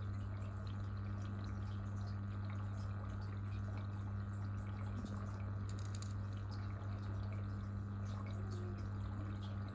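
Aquarium pump humming steadily, with water trickling and dripping in small scattered ticks.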